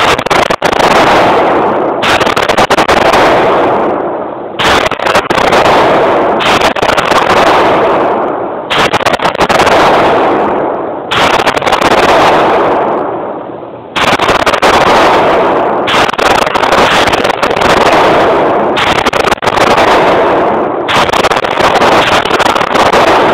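9mm Smith & Wesson pistol firing a long string of shots, irregularly spaced about one to two seconds apart. Each crack trails a long echo off the concrete walls of an indoor range.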